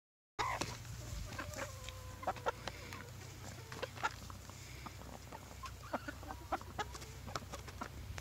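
Hens clucking softly while they feed, over many quick sharp taps of beaks pecking grated parsnip from a plastic tub and the grass. The sound begins just under half a second in.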